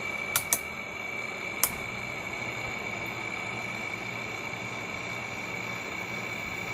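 Frigidaire air conditioner's controls clicking three times as it is switched from fan to low cool, its fan running steadily with a thin high whine. A low hum joins after the last click as it goes into cooling.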